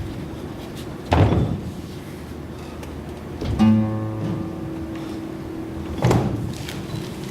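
Slow acoustic guitar music: a chord struck about every two and a half seconds, each left to ring out.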